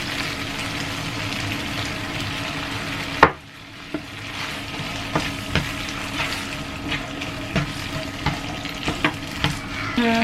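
Sauce sizzling in a wok while a spatula stirs it. About three seconds in there is a sharp knock, after which the sizzle is quieter and the spatula taps and scrapes against the pan now and then.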